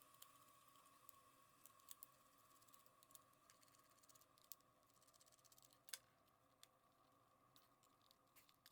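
Near silence with a few faint, scattered clicks of a plastic gamepad being handled while it is taken apart.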